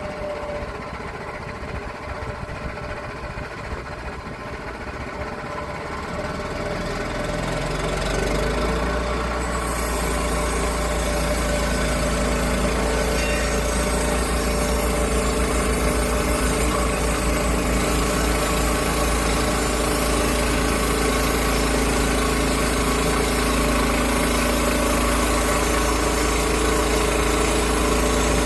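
Portable sawmill's petrol engine idling, then speeding up about six to ten seconds in and settling into a steady, louder run at working speed, ready for a cut through the oak log.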